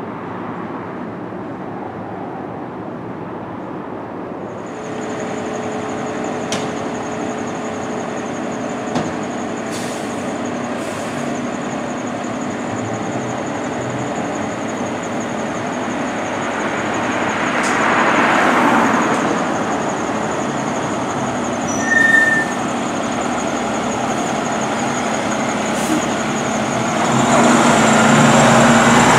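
A fire engine's diesel engine running as the ladder truck pulls out of the station, with a thin high whine from the start-up on, a hiss around the middle that sounds like air brakes releasing, and a short beep later on. It grows loudest near the end as the truck drives past close by.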